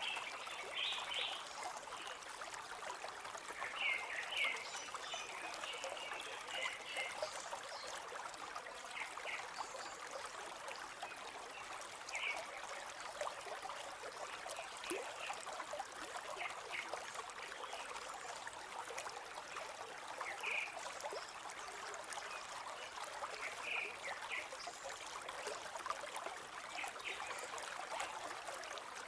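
Steady flow of a forest river, with short bird chirps coming every few seconds over it.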